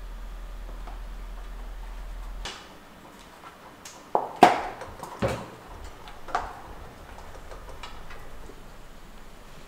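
Continental Mountain King mountain-bike tire being worked onto its rim by hand: a handful of sharp snaps and clicks of rubber and bead against the rim, the loudest about four and a half seconds in.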